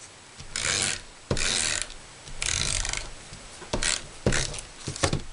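Stampin' Up! SNAIL adhesive tape runner rolled across card stock in about six short strokes, each a brief ratcheting whir as it lays down adhesive.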